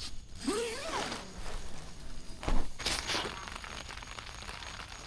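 Rain falling on a tent, a steady hiss, with the rustle of people moving inside it and a sharp thump about two and a half seconds in.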